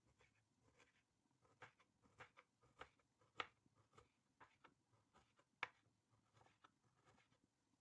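Faint, irregular light clicks and taps of kitchen work with food and utensils, with two sharper knocks about three and a half and five and a half seconds in.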